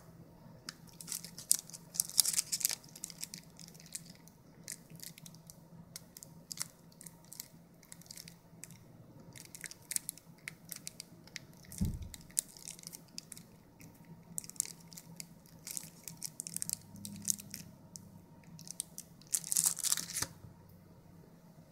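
Thin plastic membrane-keypad remote being handled and its buttons pressed: scattered crisp plastic clicks and crinkling, in denser bursts about two seconds in and again near the end. A single dull thump comes about halfway through.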